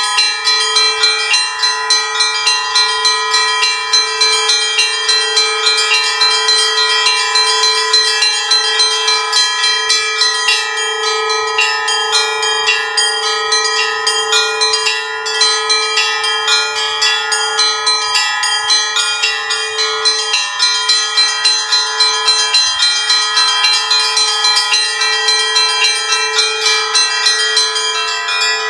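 Festive Russian Orthodox peal on a portable belfry of seven small church bells, from 5 to 32 kg. The small bells are struck rapidly, several strokes a second, over the steady ringing of the larger bells.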